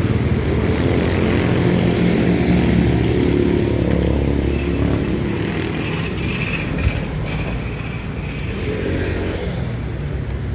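Road traffic passing close by on a busy road: motor vehicle engines, loudest in the first half and easing off after about six seconds.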